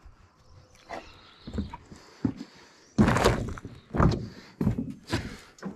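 Thuds and knocks as the heavy sawmill head is shifted and tipped on cardboard-covered plywood in its shipping crate, a few soft ones at first and the loudest about three seconds in.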